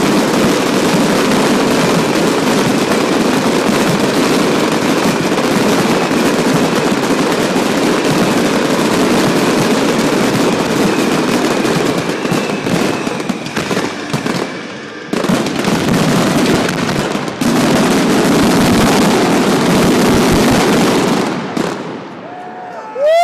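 Fireworks display in a dense barrage: a continuous rapid crackle of bursts that drops out briefly about fifteen seconds in, resumes, and dies away near the end.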